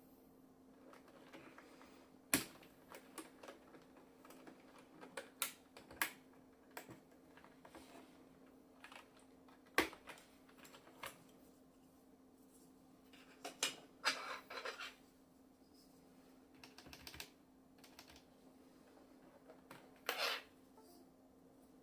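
Keys on a Skylong GK96 mechanical keyboard with Gateron Yellow linear switches and PBT keycaps being pressed. Scattered single key clicks come with short flurries of keystrokes, one about two-thirds of the way through and another near the end.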